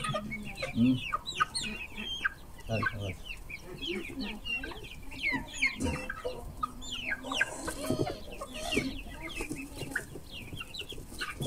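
A flock of young chickens clucking and peeping as they crowd in for corn, a steady stream of short, high calls that slide downward, overlapping one another.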